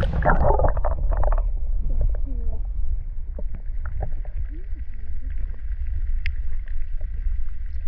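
Muffled underwater sound from a phone held below the river surface: a steady low rumble with scattered faint clicks and gurgles, and little high-pitched sound.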